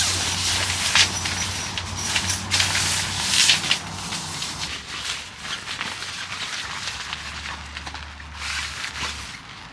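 Nylon fabric of a pop-up tent rustling and swishing as it is handled, with several short, sharp rasps in the first half and again near the end.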